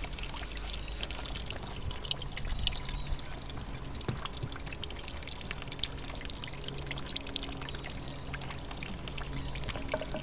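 Grape juice trickling steadily out of a loaded wooden-slatted basket wine press, with a few light knocks scattered through.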